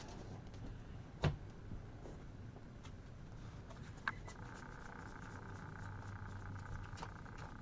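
Trading cards being handled: faint light clicks and slides of cards, with one sharp tap about a second in and a smaller one about four seconds in. A faint steady hum comes in just after the second tap.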